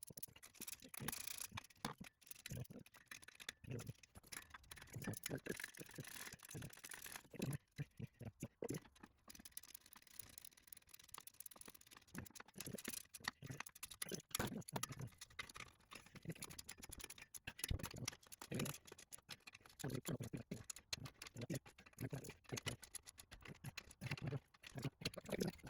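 Irregular small metallic clicks and rattles of hand tools and nuts as exhaust flange nuts are started on their studs and run down by hand, with a few dull knocks.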